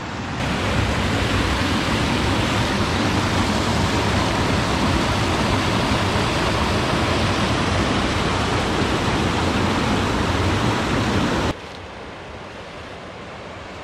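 Whitewater rushing loudly through a narrow rock chute in river rapids, a steady roar. About 11.5 seconds in it cuts abruptly to the much quieter, even rush of a shallow creek flowing over rocks.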